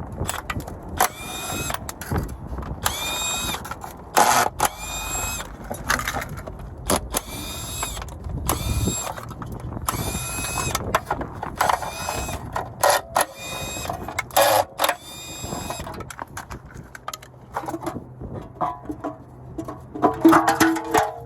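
A cordless power tool run in short bursts, about one a second, each spinning up with a rising whine. The bursts stop about fifteen seconds in, leaving a few light clicks and knocks.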